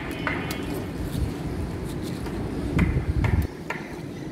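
Leaves being cut off a Malabar spinach vine: a few sharp snips and snaps of stems, with the leaves and stalk rustling and being handled, loudest about three seconds in.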